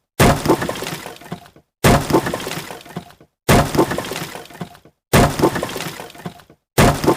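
A breaking, smashing sound effect played on a loop: five identical crashes, each a sharp impact followed by scattering debris that dies away and is cut off abruptly, about every 1.6 seconds.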